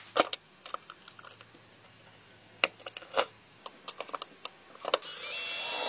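Light clicks and knocks of the small metal parts of an antique mechanical coin bank being handled on a workbench. About five seconds in, an electric drill starts and runs steadily, drilling out the old screws.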